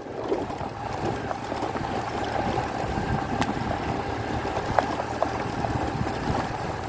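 A motor vehicle's engine running steadily, with a faint steady hum and a few light knocks.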